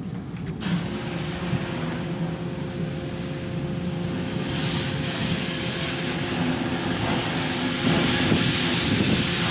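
A boatyard engine running steadily: a constant drone with a steady hum over it. A hiss joins about halfway through and grows louder near the end.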